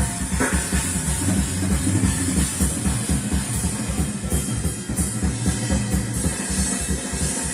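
Music with a steady drum and bass beat.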